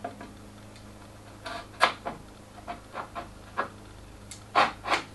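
A handful of short, irregular scraping strokes from a small fine-toothed saw drawn across the end of a hardwood board, marking a line, starting about a second and a half in.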